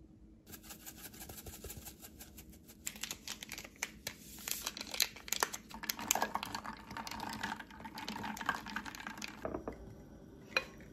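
Dense crackling and clicking kitchen handling sounds, busiest in the middle: a silicone spatula scraping cream sauce from a nonstick frying pan, then a drink-powder stick stirred into a drink in an enamel mug. A single sharp click near the end.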